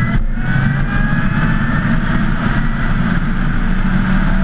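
Mission RS electric superbike at speed: the electric motor's high whine climbs slowly in pitch and then holds steady, over heavy wind rush on the onboard microphone.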